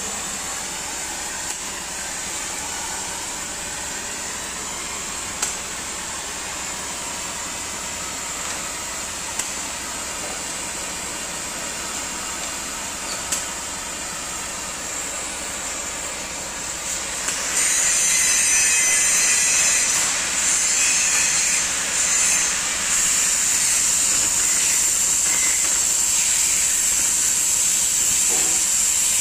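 Oxy-fuel gas cutting torch hissing steadily on its preheat flame, with a few light clicks. About two-thirds of the way through the hiss jumps louder and harsher as the cutting oxygen jet opens and the torch cuts into 3 cm thick steel plate.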